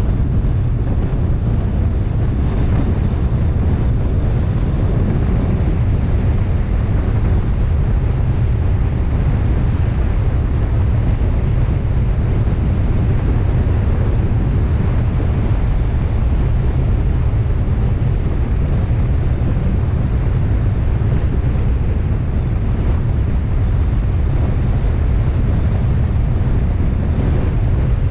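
Steady road and wind noise of a car driving, a low rumble that holds even throughout with no breaks.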